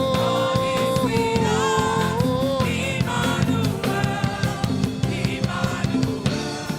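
Live gospel worship music: a sung note held for about a second, then gliding, over drums and a band, with the singing thinning out and the music getting quieter near the end.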